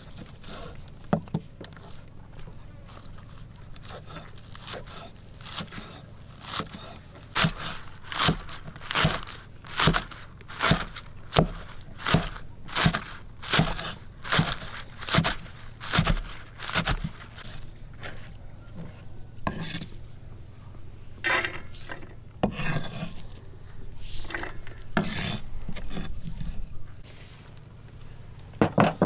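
Kitchen utensils at work: a run of sharp, evenly spaced knocks, a little more than one a second, followed by rougher scraping sounds near the end.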